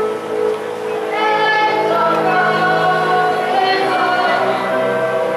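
Music with a group of voices singing long held notes; the voices come in about a second in over a steady instrumental backing.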